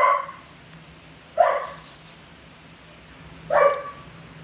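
A dog barking three times, one sharp bark every second and a half to two seconds.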